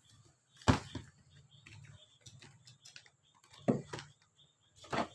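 Products and their packaging handled and set down on a surface: a sharp knock about a second in, two more near the end, with light ticking and rustling between.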